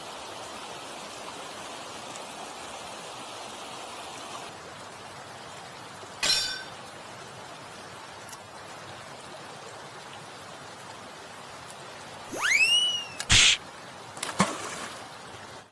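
Mountain stream running steadily. It is broken by a clinking knock about six seconds in, a rising-then-falling whistling swoop near the end, and a few sharp knocks just after it.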